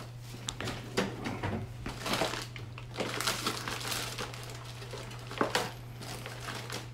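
Clicks, taps and plastic rustling from airway equipment being handled during an infant intubation. The sharpest knocks come about a second in and again at about five and a half seconds.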